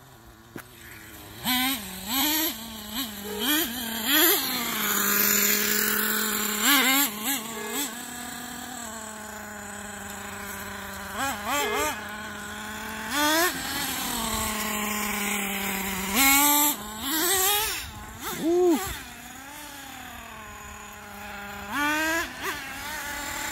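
Small nitro (glow-fuel) engine of a 1/8-scale RC truck, idling with a steady buzz and revving up in repeated short throttle bursts, its pitch rising and falling with each blip.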